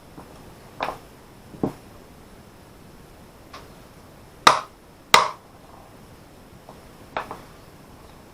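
Scattered sharp clicks and knocks of small hand tools and wiring hardware being handled, about six in all, the two loudest close together around the middle.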